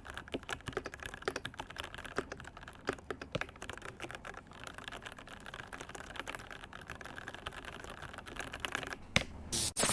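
Typing on a Keychron V1 mechanical keyboard with Keychron K Pro Brown tactile switches and double-shot PBT keycaps: a steady, quick patter of key clacks. One louder clack comes near the end, and a short hiss follows at the very end.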